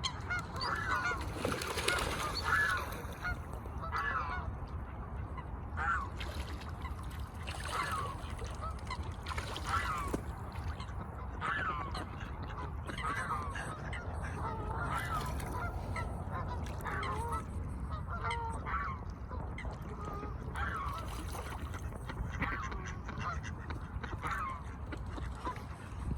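A swan honking, short calls every second or two, over a steady low rumble.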